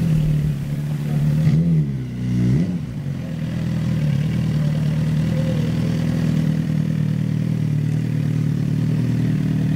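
Motorcycle engine idling, revved briefly twice about two seconds in, then settling back to a steady idle.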